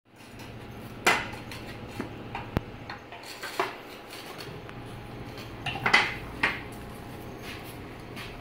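Metal test weights stacked on a hand truck clanking and clinking against each other and the cart's frame as it is handled and tipped back, in a scattering of sharp hits. The loudest come about a second in and around six seconds in, over a faint steady low hum.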